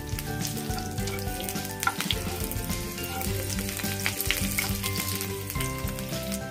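Crushed garlic cloves and a dried red chilli sizzling in hot oil in a frying pan, a steady crackle with scattered small pops.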